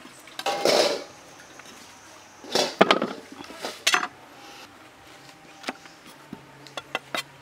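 Sliced carrots put onto a steel tray, clattering in three bursts within the first four seconds. Near the end come a few short knife chops on a wooden chopping block.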